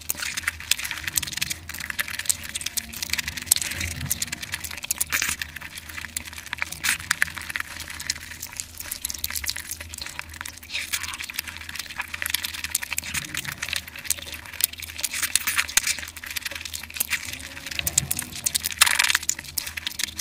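Close-miked eating sounds: wet chewing and mouth smacking on roti dipped in curry gravy, a dense irregular run of small clicks and squelches, with one louder bite near the end.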